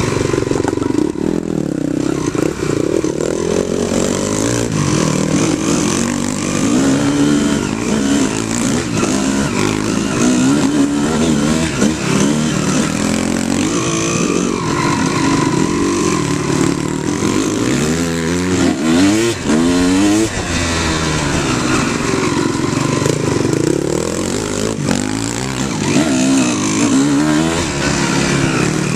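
Off-road motorcycle engine heard from on the bike, its revs rising and falling steadily with the throttle over the trail. About two-thirds of the way through there is a quick run of repeated rising revs.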